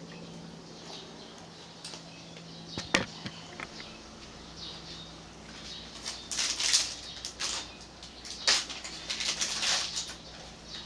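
Handling noise from a USB cable being picked up and readied to plug into a laptop: a sharp plastic click about three seconds in, then bursts of rustling in the second half.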